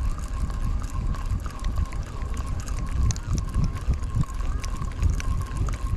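Wind buffeting the microphone in uneven gusts, with a faint steady whine underneath and a few small clicks.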